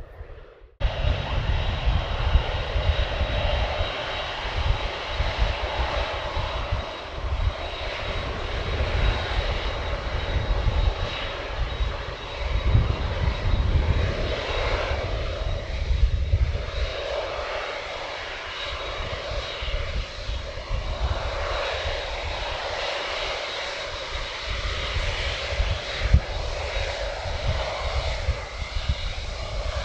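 Boeing 747-8F freighter's four GEnx turbofan engines running at low taxi power: a steady jet rumble with a thin, steady high whine.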